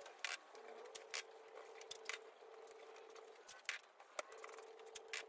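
Masking tape being pulled off the roll, torn and pressed onto timber boards: a few short, sharp crackles spread through the quiet. A faint steady hum sits underneath and drops out twice.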